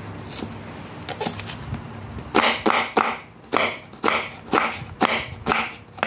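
Kitchen knife slicing onions on a wooden cutting board: each cut is a crisp crunch ending in a knock on the board. A few light taps come first, then from about two seconds in the strokes run steadily at about two a second.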